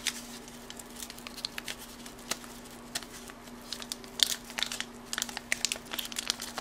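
Wax-paper wrapper of a 1981 Topps football card pack crinkling and tearing as it is peeled open by hand, a scatter of sharp crackles that come thicker in the second half.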